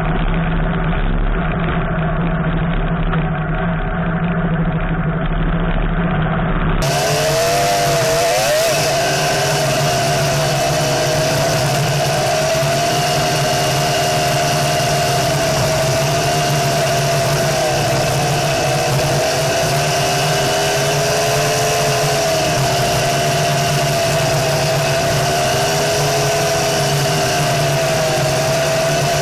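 Homemade off-road buggy's engine running as it drives along a dirt track, its pitch rising and falling gently with the throttle.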